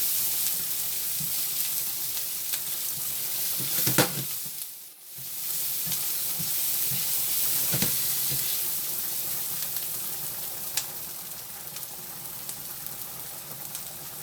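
Sliced onions frying in hot oil in a pot, a steady sizzle. A few sharp clicks cut through it, and the sizzle briefly drops away about five seconds in.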